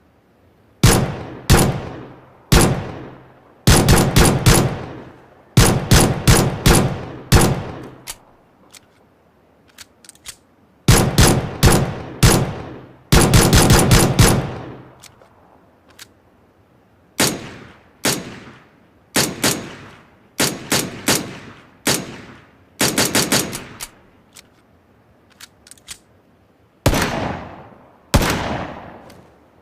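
Gunshot sound effects: single shots and quick bursts of several rounds, each a sharp crack with a fading echo tail, in groups separated by short pauses.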